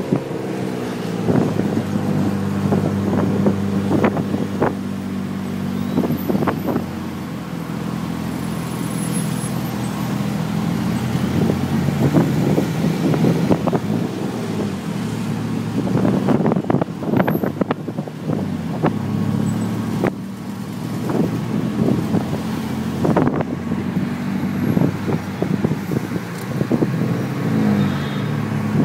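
A tuk tuk's engine running while it drives through traffic, heard from the open passenger seat, its note rising and falling with engine speed. Short knocks and rattles come through often, with wind buffeting the microphone.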